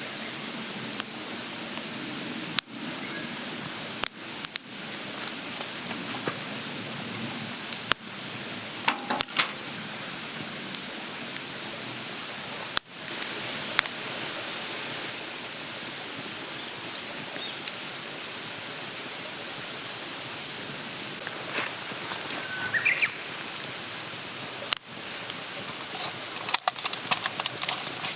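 Campfire burning with a steady hiss and scattered sharp crackles and pops, busier in short clusters about nine seconds in and again near the end.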